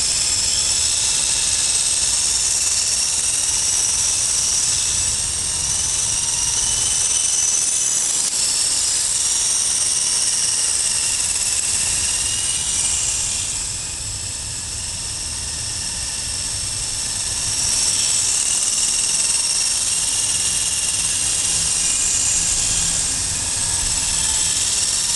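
Double Horse 9053 Volitation RC coaxial helicopter in flight, its small electric motors and rotors giving a steady high-pitched whine of several tones whose pitch wavers slightly with throttle. About halfway through the whine grows quieter for a few seconds, then comes back up.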